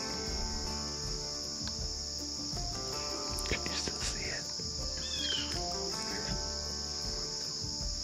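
Steady high-pitched chorus of crickets, with background music of held notes underneath. A few short chirps come in about halfway through.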